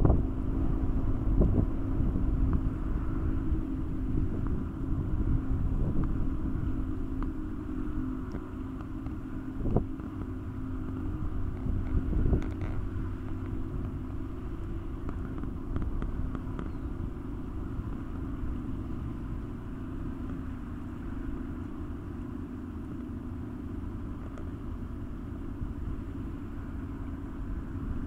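A motor running: a low, steady rumble with a hum, louder for the first dozen seconds or so and then settling quieter. A few brief thumps stand out early on.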